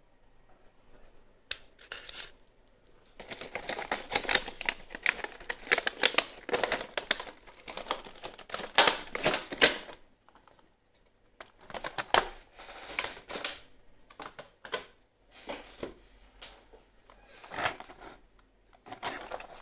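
Stiff clear plastic packaging and plastic accessory bags crackling and crinkling as they are handled during an unboxing, in irregular runs of rapid clicks, the longest from about three to ten seconds in.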